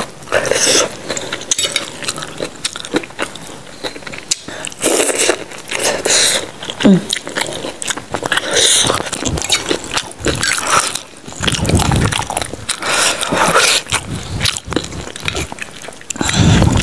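Close-miked mouth sounds of eating: chewing and slurping rice vermicelli in spicy soup and biting into raw vegetables, in irregular loud bursts.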